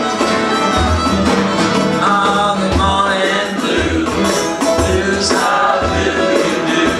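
Live acoustic blues band playing: strummed acoustic guitars and harmonica with fiddle, over a steady beat of about one low pulse a second.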